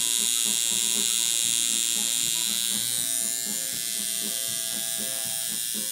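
Electric tattoo machine buzzing steadily as its needle works into skin. A hiss high up in its sound drops away about three seconds in, while the buzz carries on.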